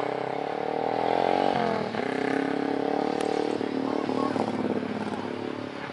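Fuel tanker truck's engine running as it drives past close by; its pitch drops briefly about a second and a half in, then climbs again and holds.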